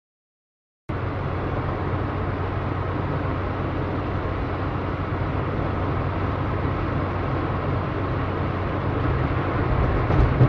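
Steady road and engine noise of a moving car heard from inside the cabin: a low hum under an even rushing noise, cutting in suddenly about a second in after silence.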